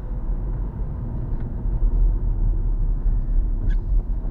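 Car interior noise while driving: a steady low rumble of engine and tyres on the road, picked up inside the cabin by an action camera's built-in microphone on the windscreen.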